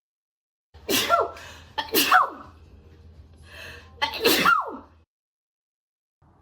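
A woman sneezing three times, set off by a nasal swab. Two sneezes come about a second apart, then a third about two seconds later, each ending in a falling voiced "choo".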